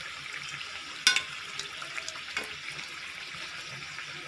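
Samosas sizzling as they deep-fry in hot oil in a kadhai, a steady hiss, with two sharp clicks about a second and two and a half seconds in.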